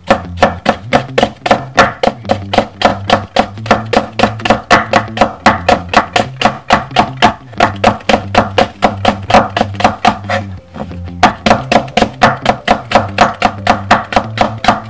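A chef's knife slicing a Korean green onion (daepa) on a wooden cutting board: rapid, even taps of the blade on the wood, about five a second, with a short pause about two-thirds of the way in. Background music with a bass line runs underneath.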